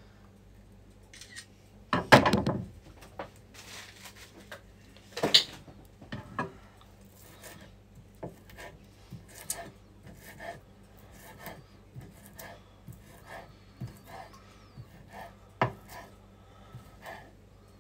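Chef's knife slicing green onion on a wooden cutting board: irregular taps of the blade on the board, with a few louder knocks, over a faint steady hum.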